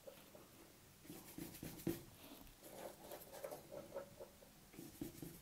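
A paintbrush laying gouache onto cardboard: faint, irregular scratchy strokes starting about a second in.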